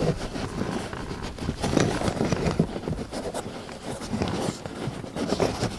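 Fingers pushing a thin dash cam power cable into the gap behind the car's floor carpet at the dashboard: irregular scraping and rustling of the cable and hand against carpet and trim.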